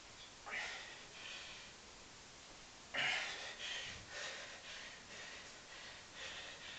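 A man's heavy, labored breathing from the exertion of a long set of pistol squats: a loud sharp breath about 3 seconds in, then a run of quicker, shorter breaths.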